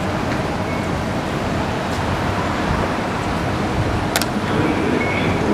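Steady background noise of an MRT station with a train standing at the platform. A sharp click comes about four seconds in as the fare gate's flaps swing open, and there are a couple of faint short beeps from the gates.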